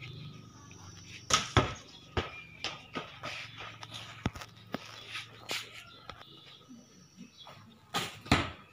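Irregular short, sharp knocks and taps, a few a second, loudest about a second and a half in and again near the end.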